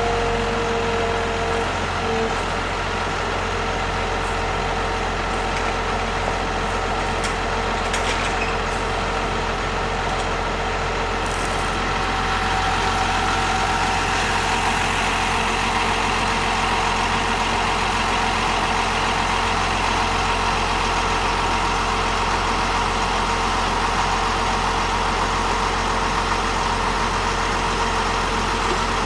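An engine running steadily at a constant speed, with an even hum that does not change pitch.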